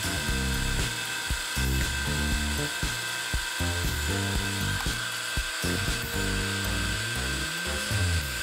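Freund SPIR-A-FLOW rotary fluid-bed granulator-dryer running with a steady whir and hiss, under background music with shifting low notes and a pair of gliding tones near the end.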